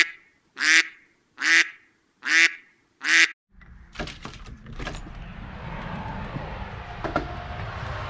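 A run of five loud duck-like quacks, one about every 0.8 s, with dead silence between them. About three and a half seconds in they stop, and steady wind rumble on the microphone begins, with a few sharp clicks of a door latch around the four-second mark.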